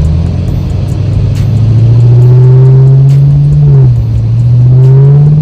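Camaro SS V8 accelerating, its engine and exhaust note climbing steadily in pitch, dropping sharply at an upshift nearly four seconds in, then climbing again.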